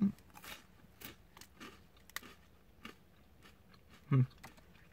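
Crunchy chewing of a chocolate crisped-rice cereal bar, with irregular small crackles as the dry puffed rice breaks, and a short louder low sound about four seconds in.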